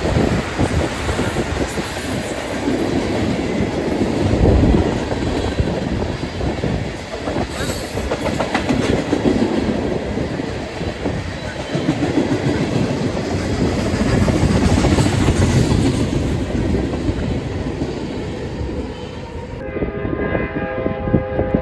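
CSX manifest freight train rolling past, with a steady heavy rumble and the clatter of wheels over the rails that swells and eases as the cars go by. Near the end it cuts to a train horn sounding a sustained chord.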